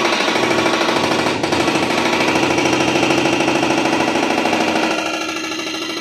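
Hydraulic breaker on a JCB backhoe loader hammering concrete: a loud, fast, steady rapid-fire pounding that becomes a little quieter about five seconds in.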